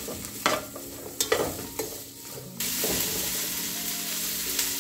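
Diced onions frying in oil in a nonstick pot, stirred with a spatula: a few scraping strokes against the pot, then a steady sizzle that gets suddenly louder about halfway through.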